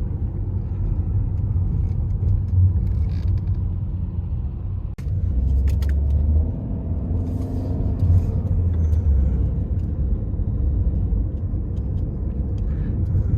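Steady low rumble of a car driving, its engine and tyre noise heard from inside the cabin, with a few light clicks and a brief dropout about five seconds in.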